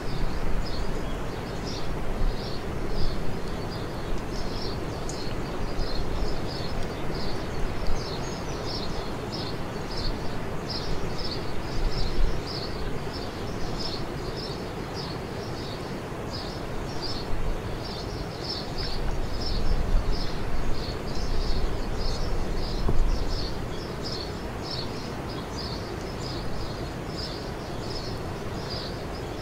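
A high-pitched chirp repeating steadily about three times a second, over a low rumble of outdoor background noise that swells and falls.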